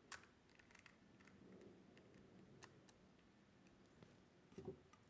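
Near silence with a few faint clicks as a screwdriver tightens the grip screw into a revolver's laser grip panel, then a short soft knock near the end.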